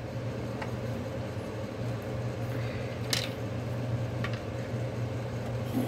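Steady low hum of room background, with a few faint clicks of small plastic Unifix cubes being picked up and set down on a wooden table, the clearest about three seconds in.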